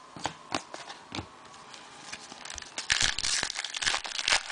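Trading cards being handled: a few light taps and clicks, then from about three seconds in a dense, dry rustling and scraping as the cards are slid against each other.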